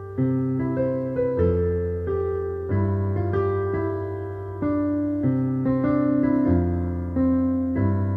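Background music on a piano-like keyboard: a slow tune of held notes over bass notes that change every second or so.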